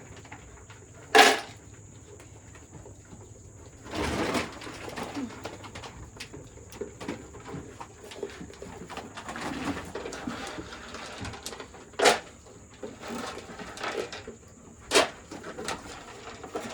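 Goats feeding and jostling at a row of feed bowls, with sharp knocks of bowls or hooves against the feeder. One loud knock comes about a second in and two more near the end, over a steady low rustle of the animals eating.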